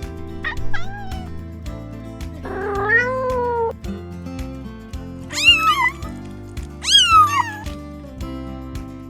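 Domestic cat meowing four times over steady background music. The first meow is short and falling, the second is longer and lower, and the last two are loud and fall in pitch.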